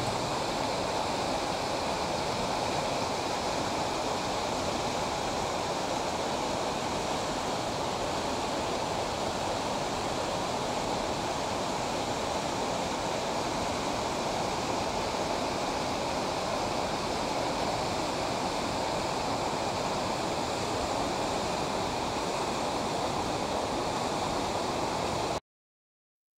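Waterfall pouring over a rock face: a steady rush of falling water that cuts off suddenly near the end.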